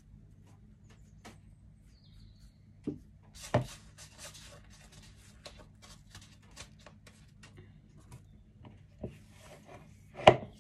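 Hands working sticky glutinous-rice dough over plastic bowls: soft rubbing and scattered small clicks, with a few louder knocks, the loudest near the end.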